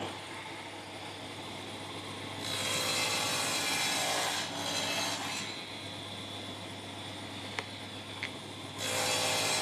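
Table saw running with a steady hum while plywood is pushed through the blade on a crosscut sled. The cutting noise grows louder from about two and a half seconds in, again briefly around five seconds, and again near the end.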